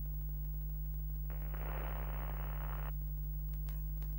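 Steady low electrical hum, like a test-card tone, with a burst of static hiss lasting about a second and a half, starting just after the first second, and a couple of faint clicks near the end.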